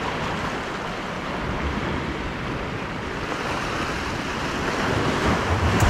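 Small ocean waves washing and splashing against the rocks of a jetty: a steady rush of surf that swells a little near the end.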